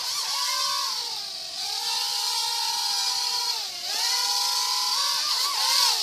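Air Raiders Discovery toy quadcopter's motors and propellers whining in flight. The pitch dips and climbs back twice as the throttle changes, then wavers quickly near the end.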